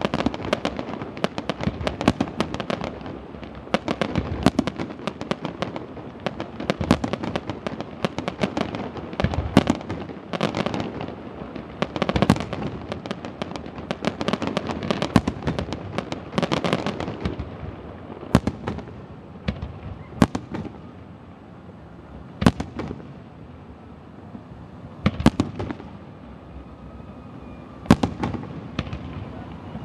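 Fireworks bursting: a dense, rapid barrage of bangs for about the first seventeen seconds, then thinning to single booms every two to three seconds.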